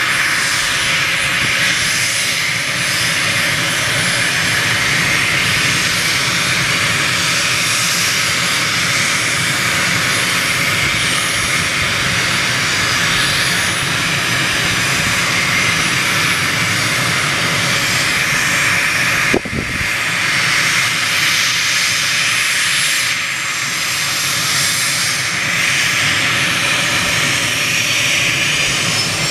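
Cessna 550 Citation Bravo's twin Pratt & Whitney Canada PW530A turbofans running at taxi power as the jet rolls slowly: a loud, steady high whine over a hiss.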